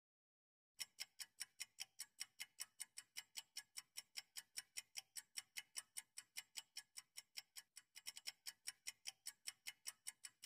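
Clock-ticking sound effect of a quiz countdown timer: short, even ticks about four to five a second, starting a moment in and coming a little thicker near the end.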